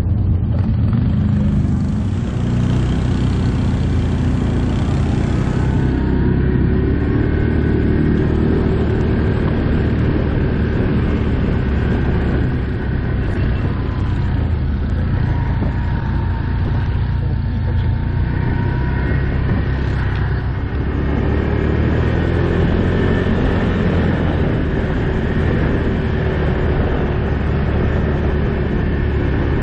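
ATV engine running steadily as the quad is ridden along a dirt and snow track, its note rising and falling a little with the throttle. A high hiss joins it for about four seconds near the start.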